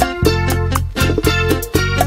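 Instrumental introduction of a Latin love song, with no singing: bass notes and plucked-string melody over a steady beat.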